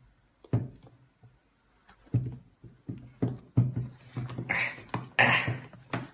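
An iPad box being handled and opened by hand: a string of light knocks and taps, with rustling scrapes about four and a half and five seconds in.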